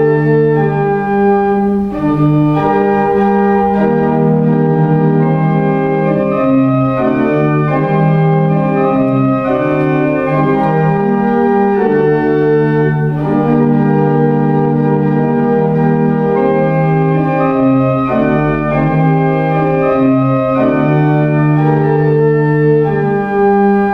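Church organ playing a slow piece in full, sustained chords that change about every second or so.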